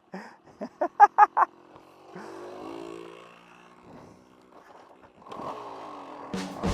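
A couple of short voice bursts, then a two-stroke dirt bike engine running at a distance, its pitch sliding up and down as it revs, growing louder after about five seconds.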